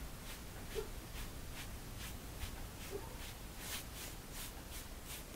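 Siamese kitten licking, its tongue making soft rasping strokes about three a second.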